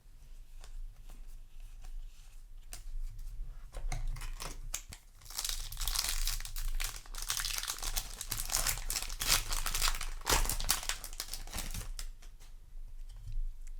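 Foil booster pack of trading cards being torn open and crinkled, the crackling densest through the middle, with lighter clicks and rustles of handling before and after.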